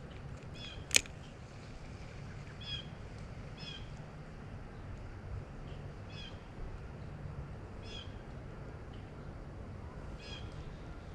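A bird calling over and over, short mewing calls every second or two. A single sharp click about a second in is the loudest sound, over a steady low rush of water.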